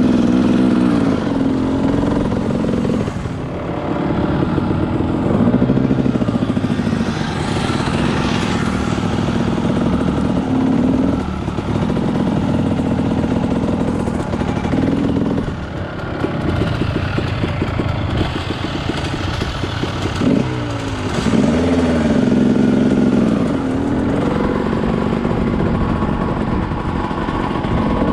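A small vehicle engine running, its revs rising and falling again and again as the throttle is opened and closed.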